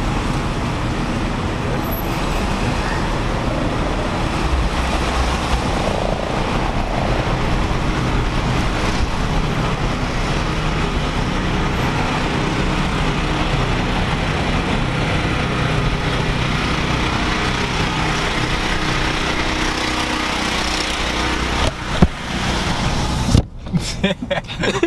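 Steady road and tyre noise of a car driving on wet streets, heard from inside the car. Near the end the steady noise breaks off into a few sharp knocks and quieter, uneven sound.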